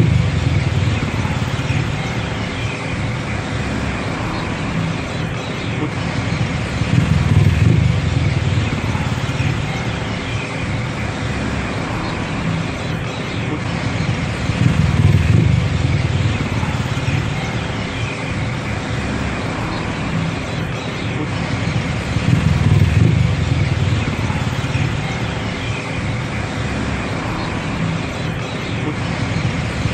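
Loud, continuous engine and road noise of a Phuket tuk tuk taxi heard from its open rear cabin while driving. The low engine sound swells and eases about every seven or eight seconds, over a thin steady tone.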